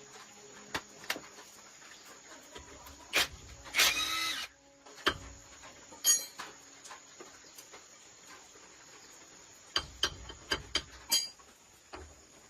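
Hand tools and parts being handled during truck driveshaft repair work: scattered sharp clicks and knocks, with a brief scraping rattle about four seconds in and a quick run of clicks near the end.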